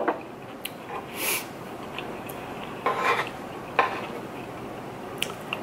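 A spoon scraping and clinking against a food tray while scooping rice and sausage, in a few short scrapes with a sharp click near the end.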